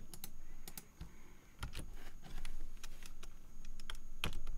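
Computer keyboard keystrokes, a sparse irregular run of single key clicks.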